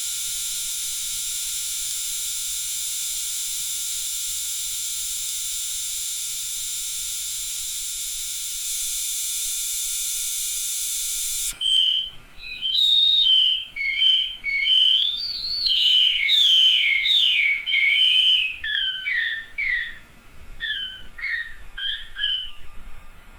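A steady high-pitched drone, like an insect chorus, that stops abruptly about halfway through. After it comes a run of short whistled chirps rising and falling in pitch, like birdsong.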